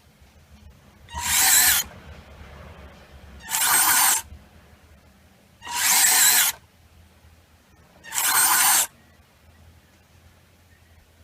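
Small electric gear motors on an RC track loader running in four short bursts, each under a second long and about two seconds apart, with a faint low hum in between.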